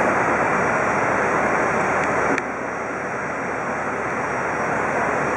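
Steady jet aircraft engine noise on an airport apron, with a click about two and a half seconds in after which the noise drops a little and then slowly builds again.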